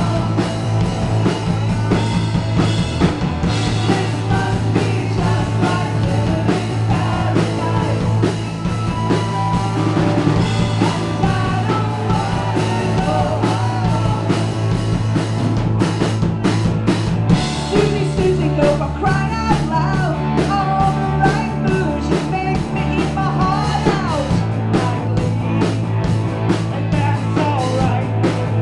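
Live rock band playing: a woman singing lead over electric guitars and a drum kit, with steady low bass notes and the drumming growing busier about halfway through.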